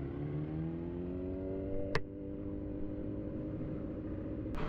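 Motorcycle engine accelerating, its pitch rising smoothly for about two seconds and then holding steady. A sharp click sounds about two seconds in and another near the end.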